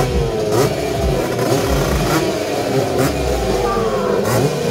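Several motocross bike engines revving together, their pitches rising and falling over one another as the riders work the throttle.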